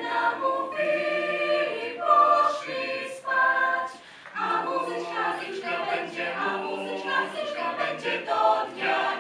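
Youth mixed choir of mostly young women singing unaccompanied in several parts, with short breaks between phrases about three and four seconds in.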